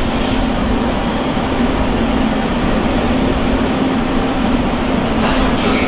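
Train at a station platform: steady noise with a constant low hum running underneath.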